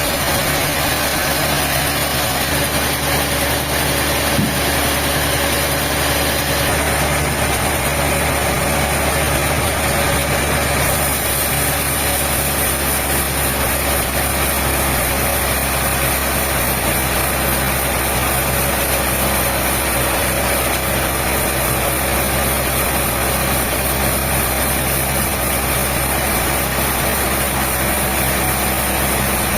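An engine running steadily at an even, idle-like speed, with one light knock about four seconds in.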